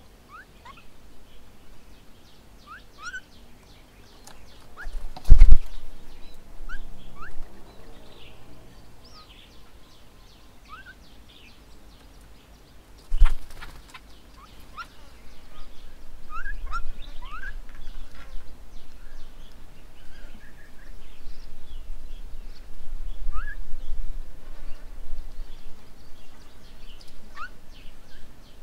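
Birds calling with many short, rising chirps scattered throughout. Two loud thumps come about five and thirteen seconds in, and a low rumble runs through the second half.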